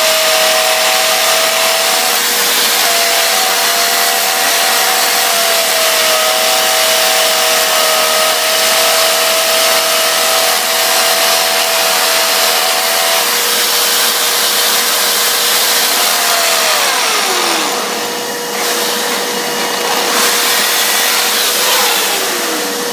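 Electric grinder running at speed during sharpening, a steady high whine over a loud grinding hiss. Near the end its whine drops sharply in pitch as the motor slows down.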